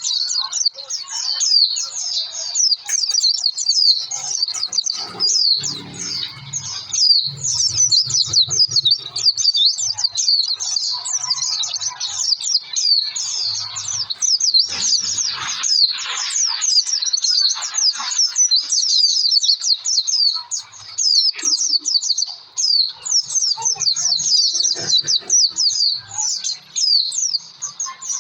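White-eye (pleci) singing on and on: a fast, unbroken stream of short, high chirps and twitters.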